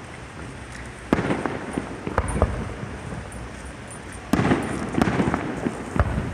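Fireworks bursting: a sharp bang about a second in, another around two seconds, and a louder bang past four seconds, each followed by crackling, with a single bang near the end.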